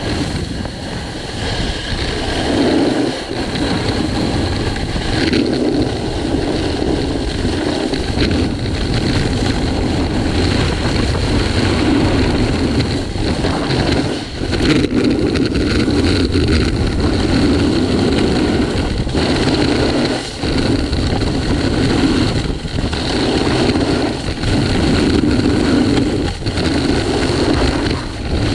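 Snowboard sliding and carving over groomed snow, the edge scraping steadily, with wind rushing over the microphone; the noise swells and dips from turn to turn.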